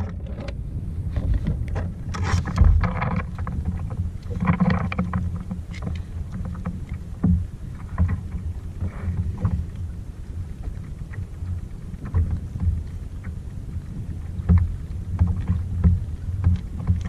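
Wind rumbling on the microphone of a kayak on open water, with water sloshing against the hull. A few short knocks and louder splashy patches come about two to five seconds in.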